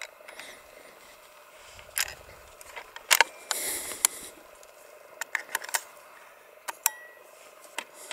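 A scoped hunting rifle being handled: a string of sharp metallic clicks and rattles, the loudest pair a little after three seconds in, followed by a brief scrape and another cluster of clicks near the middle.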